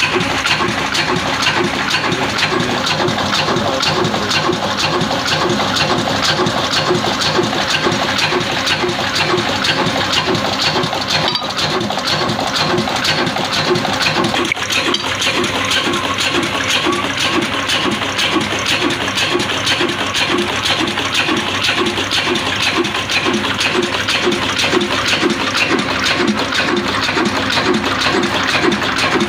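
Old Shaheen horizontal diesel engine with a large flywheel running steadily, with an even, rhythmic mechanical clatter.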